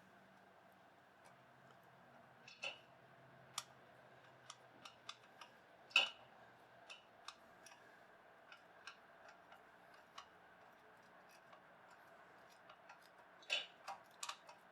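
Faint, irregular light clicks and taps of a hand tool against metal as set screws are tightened on a drill press, with a slightly louder click about six seconds in and a quick few near the end.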